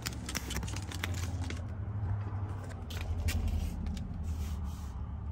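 Vinyl wrap film being peeled and crumpled off a steering-wheel bezel, a quick run of crackles and crinkles that is densest in the first couple of seconds, over a low steady rumble.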